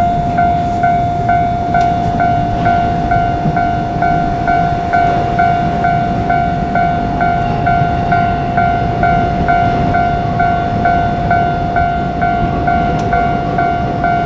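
Japanese railway level-crossing warning bell ringing, a steady electronic tone with a pulsing higher chime about twice a second, over a low train rumble.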